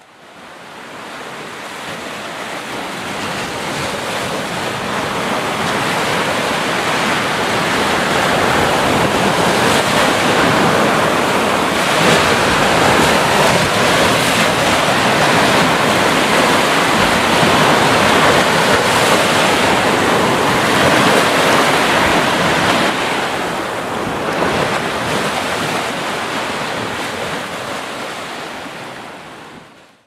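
Ocean surf: waves breaking and washing in as a continuous rushing noise with slow surges. It fades in over the first several seconds and fades out near the end.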